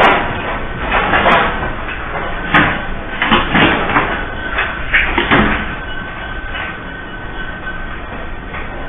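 Continuous rumbling with repeated bangs and rattling clatters from a building shaking in a strong earthquake. The banging is densest in the first five seconds or so and then thins out, leaving the rumble, with a faint steady high tone beneath.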